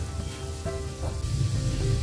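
Zucchini and potato fritters sizzling as they shallow-fry in oil in a pan, a fine steady crackle under background music with a steady melody and bass.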